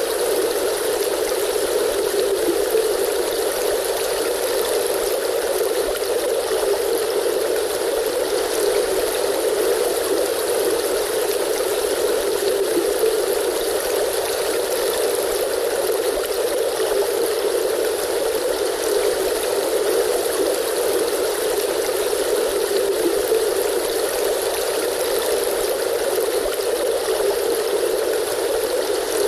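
A river stream flowing steadily, an even rushing of water with no breaks.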